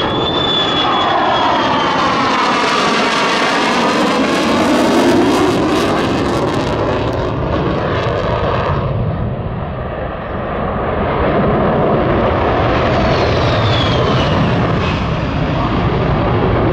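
F-35 Lightning II's Pratt & Whitney F135 jet engine in a loud flyby with afterburner lit. A high whine falls in pitch as the jet passes. The high hiss drops away about nine seconds in, and a second falling whine comes near the end.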